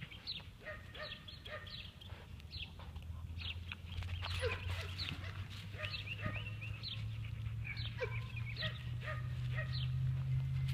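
Small birds chirping repeatedly in quick, high, downward chirps, over a low steady hum that grows louder about four seconds in.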